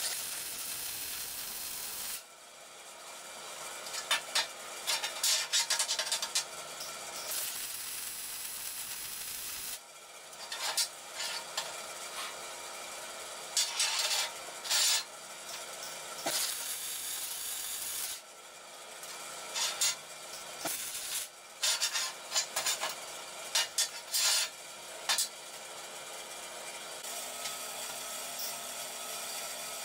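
MIG welder tacking and welding a steel box-section bracket: several short runs of steady arc sizzle. Between the welds come irregular bursts of scraping and knocking as the work is handled.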